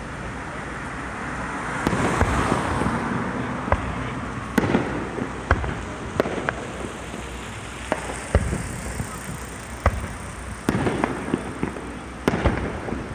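Fireworks display: about a dozen sharp bangs of bursting aerial shells at irregular intervals, over a continuous crackling hiss that swells about two seconds in.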